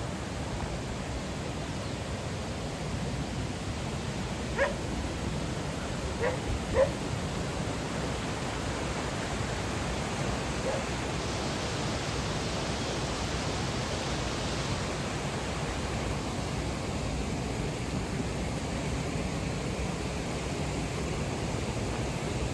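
A dog giving a few short barks or yips, three close together a few seconds in and one more faintly near the middle, over a steady rushing background noise.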